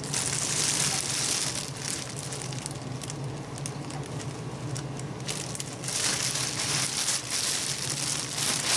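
Packaging crinkling and rustling as a bulk box of fish food is opened by hand, in crackly handling noise that is louder at the start and again over the last few seconds.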